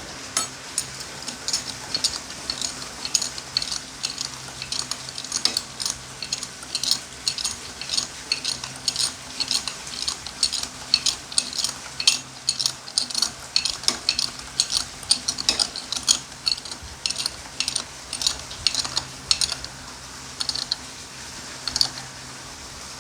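Spark plug being screwed in and tightened on a motorcycle engine with a hand tool: a long run of quick, uneven metallic clicks that thin out near the end.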